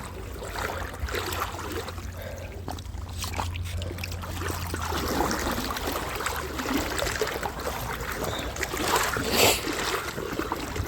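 River water splashing and trickling with small irregular knocks and rustles, as the water is disturbed close by. A low rumble runs under it for the first half.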